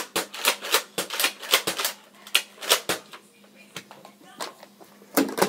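Nerf Rampage pump-action dart blaster being worked: a quick run of sharp plastic clacks, about three a second for the first three seconds, then a few scattered clacks near the end.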